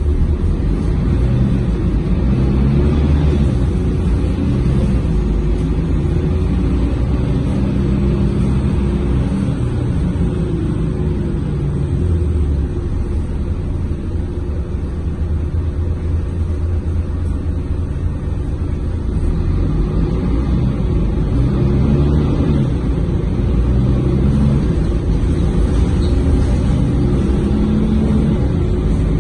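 Mercedes-Benz OC500LE city bus heard from inside the passenger cabin while under way: a steady low engine and road rumble, with the engine's pitch rising and falling several times as the bus pulls away and changes speed.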